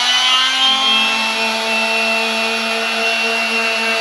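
Electric palm sander running at a steady whine, sanding down a raised edge at the seam between two plywood subfloor sheets.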